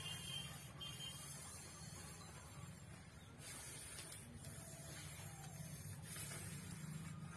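Quiet steady hiss and low hum, with a few faint, brief rustles and soft squishes of rice being mixed and eaten by hand from banana leaves.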